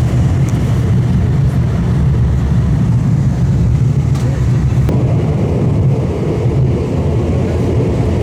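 Tram running along its line: a steady low rumble of wheels on rails and traction motors, with a couple of faint clicks about four and five seconds in.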